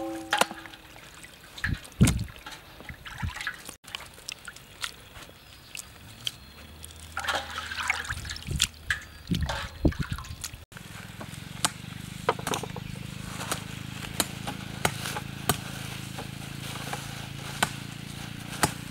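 Water trickling, dripping and sloshing as raw meat is rinsed and handled by hand, with scattered small clicks and splashes. A steady low hum comes in at about eleven seconds.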